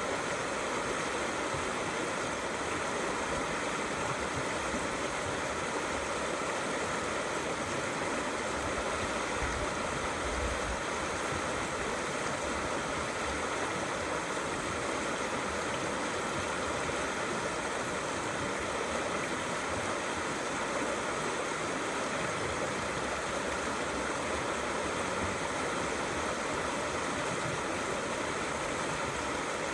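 Small river flowing gently under a stone bridge: a steady, continuous rush of running water.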